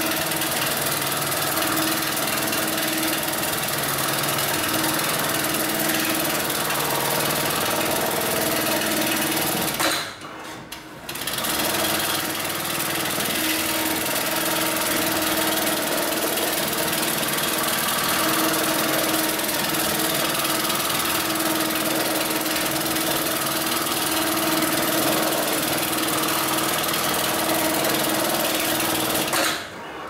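HighTex MLK600 programmable industrial sewing machine running its automatic cycle, stitching heavy ratchet-strap webbing at high speed. It pauses briefly about ten seconds in, then resumes, and stops near the end as the cycle finishes.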